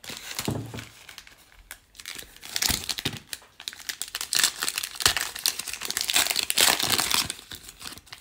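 Foil wrapper of a Panini Prizm soccer card pack crinkling in the hands as it is worked and torn open, a dense crackle that builds about two and a half seconds in and runs until near the end.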